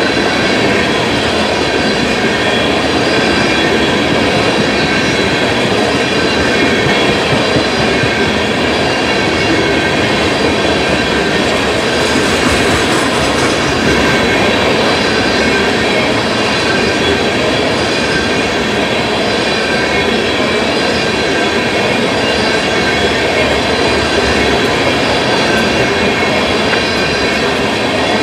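A freight train of tank cars rolls steadily past, with continuous loud wheel-on-rail noise. Thin, steady, high squealing tones from the wheels ride over it.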